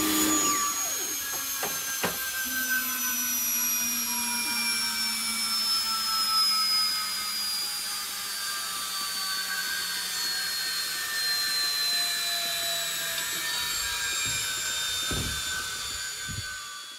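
The flywheel (rolleron) on a Sidewinder missile's tail fin whining as it spins down after being spun up by an air jet, its pitch falling slowly and steadily, with a rush of air hiss at the start. A few knocks as the metal fin is tilted by hand, about two seconds in and near the end.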